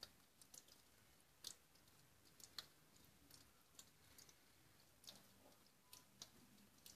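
Near silence broken by faint, sharp, irregular clicks and ticks, about one or two a second, several of them slightly louder.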